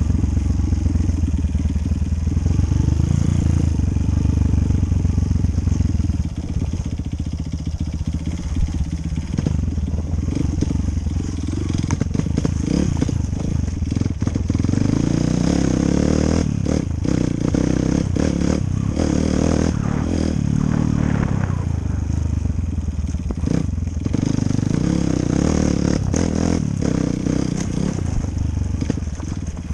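Enduro motorcycle engine running, its revs dropping about six seconds in and rising and falling again later. Knocks and rattles come through in the second half, typical of a dirt bike being ridden over rough ground.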